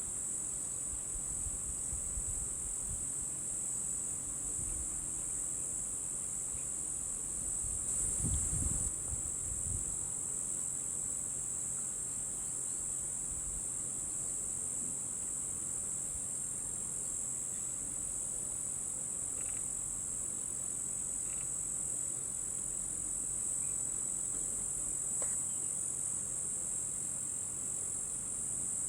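A steady, high-pitched chorus of insects, one continuous drone with no break. About eight seconds in there is a brief low rumble.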